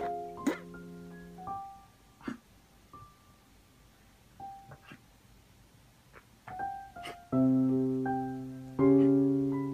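Background piano music: a few held notes, a sparse quiet stretch, then loud chords starting a little over seven seconds in.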